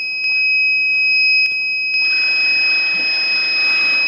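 Buzzer of an Arduino Nano and MQ-2 gas-sensor smoke detector sounding one steady, high-pitched tone: the alarm is triggered by incense smoke reaching the sensor. A rushing hiss joins about halfway through.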